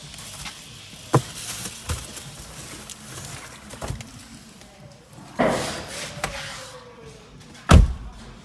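Scattered knocks and clicks of hands and tools working on a car's dashboard, with a short rustling clatter about five and a half seconds in and the loudest knock near the end.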